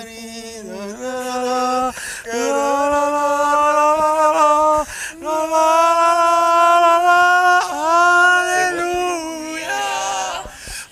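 A man singing unaccompanied into a handheld microphone: long, drawn-out notes in about four phrases, several of them sliding up into the note.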